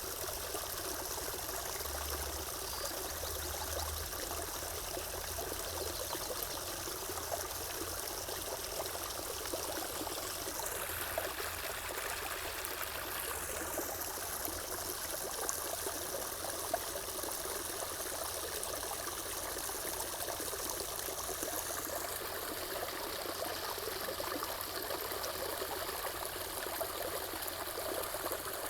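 Water running and trickling steadily, like a small stream, with an even rushing hiss that never breaks.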